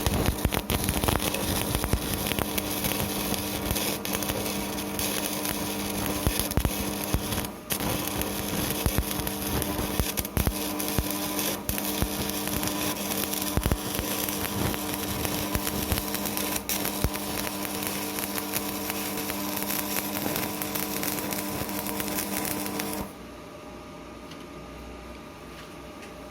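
Stick (MMA) welding arc from a 2.5 mm electrode on a Strat 160KS welding inverter, crackling steadily over a loud steady hum from the welder, which the owner says hums a lot and puts down to its circuit design. The arc breaks off near the end, and a quieter hum is left.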